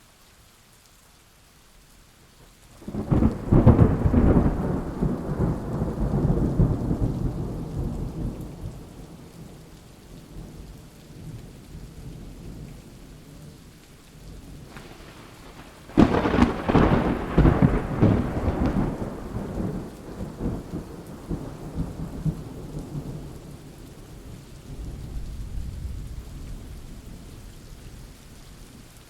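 Thunderstorm: steady rain with a loud thunderclap about three seconds in that rolls away over several seconds. A second, sharper crack of thunder comes midway and rumbles off, followed by a fainter rumble near the end.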